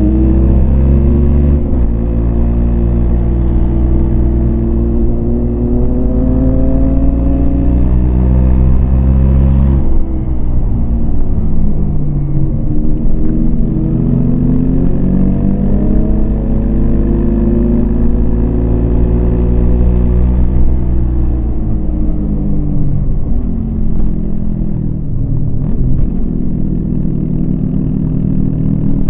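Yamaha MT-25's parallel-twin engine under way, its pitch climbing under throttle and dropping sharply at gear changes about 2 and 10 seconds in. It climbs again, eases off from about 20 seconds in, and picks up once more near the end.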